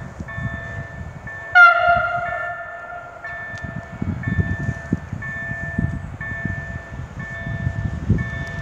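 An approaching EN98 electric multiple unit sounds its horn once, about a second and a half in: a single blast that falls slightly in pitch and fades over about a second. A level-crossing warning bell chimes in repeating tones throughout.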